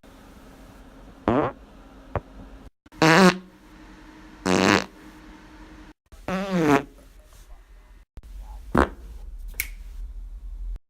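A run of about five short farts, one after another with brief pauses between them. Several have a wavering, buzzing pitch, and a couple of small clicks fall in between.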